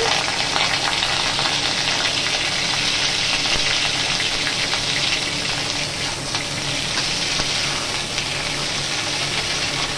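Cauliflower florets sizzling steadily as they fry in hot oil in a karahi, more florets going in as it goes on.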